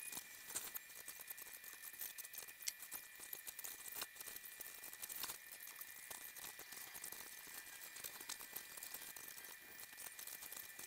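Paintbrush dabbing and scraping on a canvas: a faint, dense scratchy patter with a few sharper taps, over a steady high whine.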